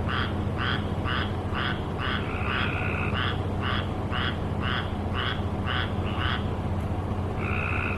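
Frogs calling in a steady chorus of short, evenly repeated calls, about two a second, with a longer held call twice, over a low steady hum.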